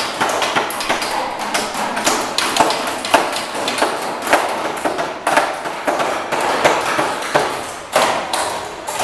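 Several hammers driving nails into lumber wall frames, an irregular clatter of overlapping sharp strikes.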